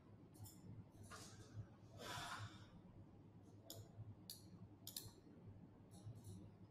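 Near silence: room tone with a faint breath about two seconds in and a few small, soft clicks.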